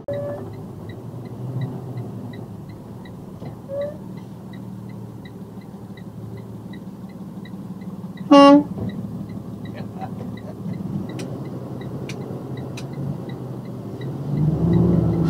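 Box truck's horn sounding one short blast about eight seconds in, over the steady rumble of the engine and road inside the cab. A light, even ticking runs underneath, about two or three ticks a second.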